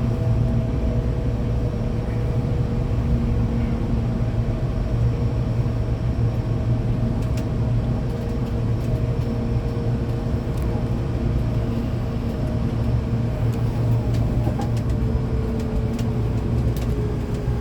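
Hankyu train with Toshiba GTO-VVVF inverters running between stations, heard from inside the car: a steady low rumble of the running gear with faint inverter and motor tones that slowly fall in pitch, and a few light clicks.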